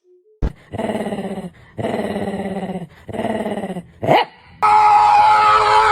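A dog growling in three drawn-out, rough grumbles, each about a second long, then a short rising yelp and a long, loud, high-pitched cry lasting about two seconds.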